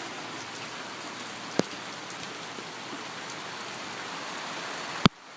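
Rain falling, an even, steady hiss. There is a sharp click about one and a half seconds in, and a louder knock near the end, after which the rain sounds fainter.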